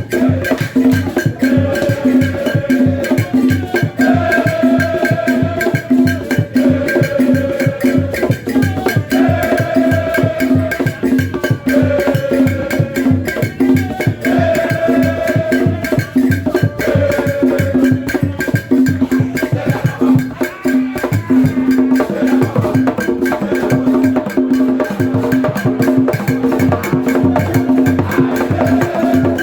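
Upbeat instrumental music with a fast, steady percussion beat and a short melodic phrase repeating every couple of seconds, played loud over a sound system during a sound check.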